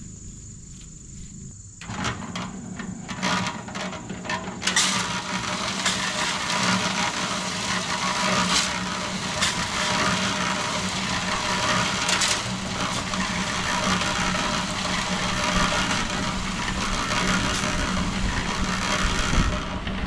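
Electric Harbor Freight cement mixer running with a steady hum that comes in about two seconds in. From about five seconds in, gravel tumbling in the turning drum adds a loud, continuous rattle, with a few sharp knocks along the way.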